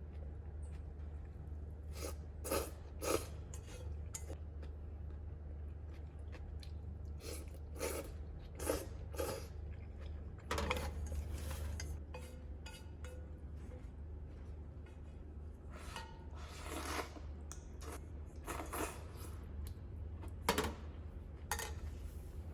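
Eating utensils clinking and scraping against a pan or dish in scattered short strikes, with a longer scrape around the middle, over a steady low hum.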